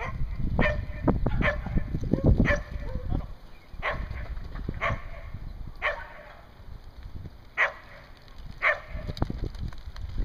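Border collie barking in short single barks, about eight spread roughly a second apart, over a low rumble of wind on the microphone.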